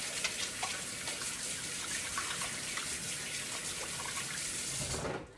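Kitchen tap running into a stainless steel sink, with hands being rinsed under the stream and light splashing. The water cuts off sharply near the end as the tap is shut.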